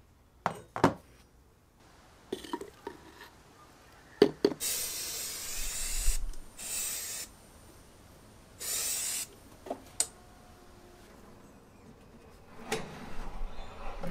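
Powder-coating spray gun hissing in three separate bursts, each about a second long. A few sharp clicks and knocks come before and after them.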